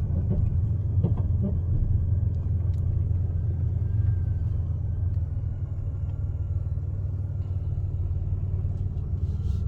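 Steady low rumble of a car's engine and tyres heard from inside the cabin while driving at a steady speed.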